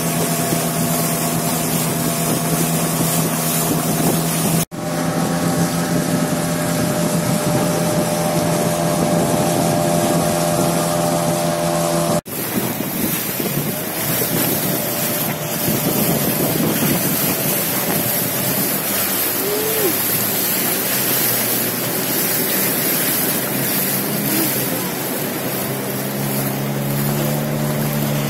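A river longboat's outboard engine running steadily under way, with water rushing along the hull and wind on the microphone. The sound cuts out for an instant twice, about five and twelve seconds in. From about twelve seconds in, as the boat runs through rapids, the rush of water grows and the engine's hum sinks beneath it, coming back strongly near the end.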